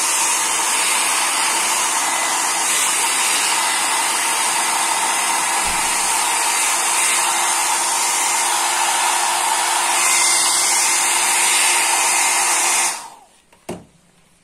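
Handheld hair dryer blowing steadily, with a faint steady tone in its rush, switched off about thirteen seconds in; a single short knock follows.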